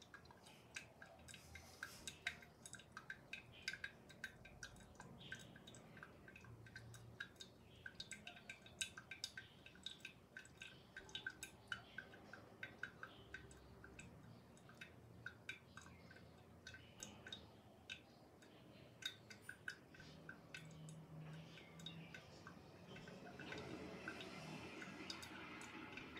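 Faint, irregular drips of brewed coffee falling from a pour-over dripper into the server below, several drops a second. Near the end a soft, steady rushing sound comes in.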